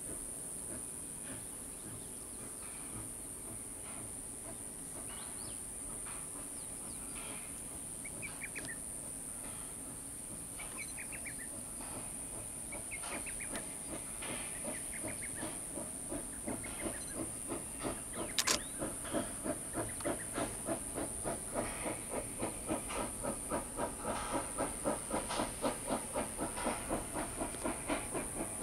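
JS-class 2-8-2 steam locomotive working a train of open wagons, with a steam hiss. Its exhaust chuffs start faint, then settle into a steady beat of two to three a second that grows louder as it draws nearer. There is one sharp, brief sound about halfway through.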